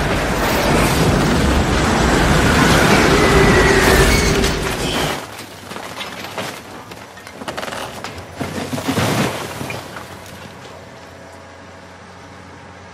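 Tornado roar: a loud, dense, rumbling rush of wind and flying debris. About five seconds in it cuts off abruptly to a much quieter hiss, with a few brief rushes of wind before it settles to a faint steady noise.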